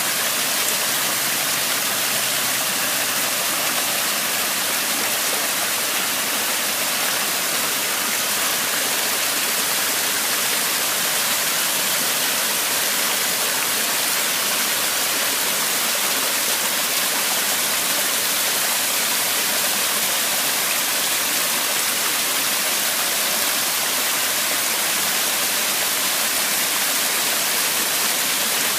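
Rushing water: a steady, unbroken hiss that stays level throughout.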